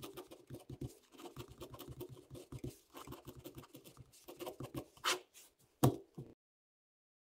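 Ballpoint pen writing on paper in quick short scratching strokes, then one longer stroke about five seconds in, and a sharp clack near the end as the pen is dropped onto the paper.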